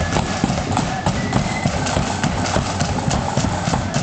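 Footsteps of a large column of parade marchers on a tarmac road: many shoes striking and scuffing, heard as a dense run of overlapping clicks, over crowd noise.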